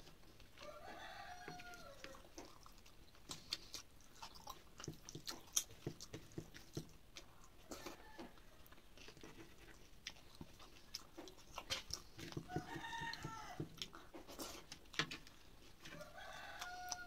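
Close-up eating sounds: chewing and sticky clicks of rice being mixed and eaten by hand, many short sharp clicks. Behind them a rooster crows three times, once about half a second in, again around twelve seconds in, and near the end.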